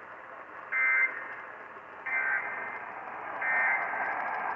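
Emergency Alert System end-of-message data tones: three short bursts of warbling two-tone digital data, about 1.3 s apart, marking the end of the tornado warning. They play over a steady radio hiss.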